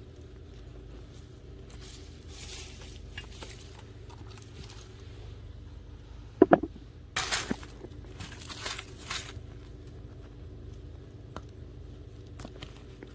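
Soil and potato plants rustling and scraping during digging for potatoes. There are a few short scrapes and one sharp knock about halfway through, over a steady low hum.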